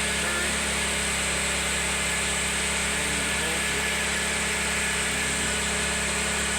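Small inverter generator engine running steadily at an even speed, with a constant hum.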